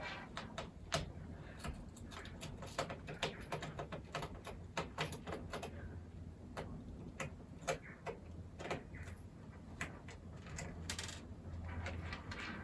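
Screwdriver working small screws out of a laptop's bottom cover: irregular small clicks and ticks, over a low steady hum.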